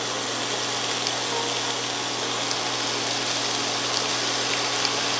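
Applewood bacon sizzling in a frying pan: a steady hiss with a few faint pops of fat.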